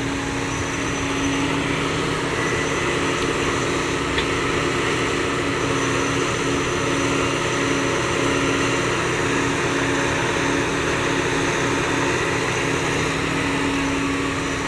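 Heavy diesel engine of the digging machinery running steadily, a constant drone with an unchanging hum.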